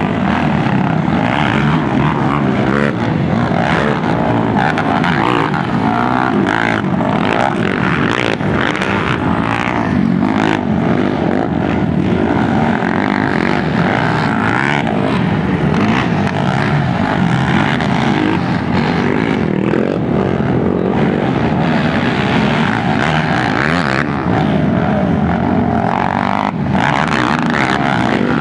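Racing quad ATV engines revving hard, their pitch rising and falling without a break as the riders accelerate and shift around the track.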